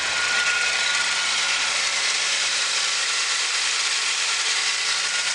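Holden VE Commodore SV6's 3.6-litre LLT V6 engine idling steadily and smoothly, with a faint steady high whine.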